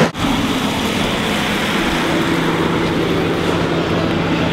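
Road vehicle running with a steady low engine hum and the hiss of traffic on a wet road.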